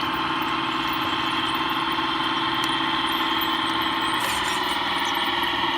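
1/14-scale radio-controlled Cat D11 bulldozer model running: a steady engine-like drone with a whine over it, shifting slightly in tone about four seconds in.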